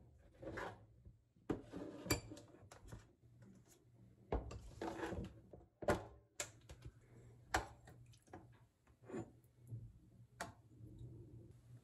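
Plastic food-storage containers being handled and their snap lids pulled off, with a string of sharp knocks as containers and a glass bowl are set down on the countertop, then metal tongs scraping and clicking as side dishes are lifted into the bowl.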